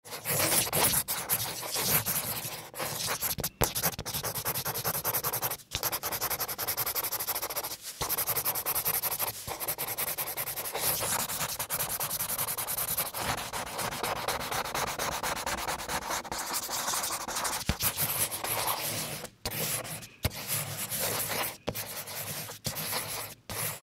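Pen tip rubbing and scratching on paper as a plastic spirograph gear is rolled round inside its toothed ring: a continuous scraping with brief breaks, several of them in the last few seconds.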